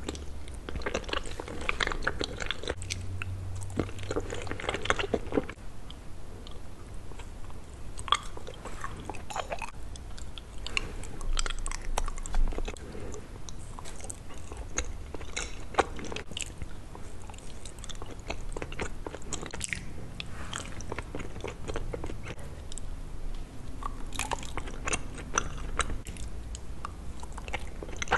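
Close-miked eating: bites and chewing of Kyoho grape jelly and soft mochi. Many short mouth clicks come at irregular intervals, with no talking.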